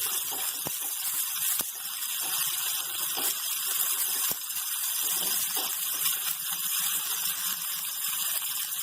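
Steady sizzling hiss of sprouted moong with onion and tomato cooking in a lightly oiled pan, broken by a few sharp clicks.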